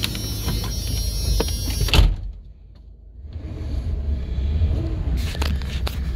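A van door slams shut about two seconds in, cutting off the outside noise. About a second later the Dodge Ram van's engine, freshly fitted with a new alternator, idler pulley and serpentine belt, comes up and runs at a steady low idle, heard from inside the cab.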